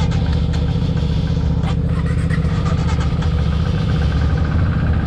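Royal Enfield Himalayan 411's single-cylinder engine idling steadily, just after a hard start.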